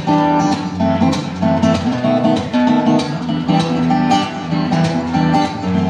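Solo acoustic guitar played live and instrumental, with rhythmic strummed and plucked chords and sharp, repeated attacks.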